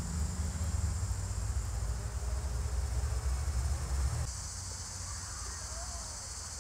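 Steady high chirring of an evening insect chorus in the grass, crickets, with a low rumble underneath that stops about four seconds in.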